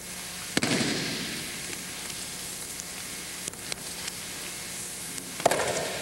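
Two loud thuds of a thrown aikido partner's body slapping down on a wooden gym floor in breakfalls, about half a second in and again near the end, each echoing briefly in the hall. Steady tape hiss and a faint hum underneath.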